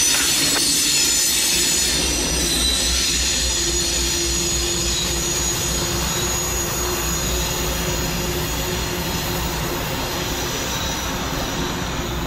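Norfolk Southern freight train rolling past, its wheels squealing in several steady high tones over a low diesel rumble that slowly fades.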